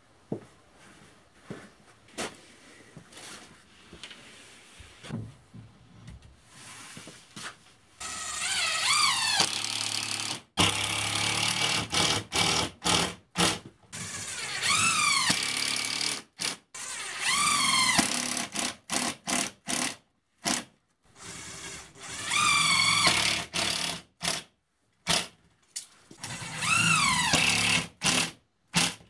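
Cordless drill driving screws into OSB wall sheathing: repeated bursts of motor whine that rise and fall in pitch with each screw, cut off abruptly again and again. Before them, for the first several seconds, only faint scattered knocks.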